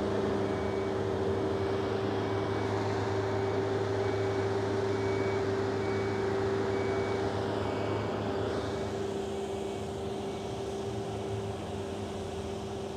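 Steady engine drone from the hoisting machinery at work on a street site, with a faint, evenly repeating high beep.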